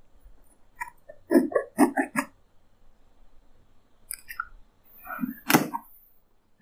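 Cardboard box being opened by hand: a quick run of short knocks and rustles from the flaps about a second in, then a few more, the loudest about five and a half seconds in.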